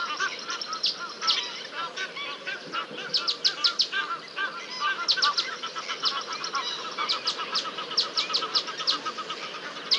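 Birds calling in a busy chorus: quick runs of sharp, high chirps come in bursts every second or two over a steady stream of lower, repeated arched notes.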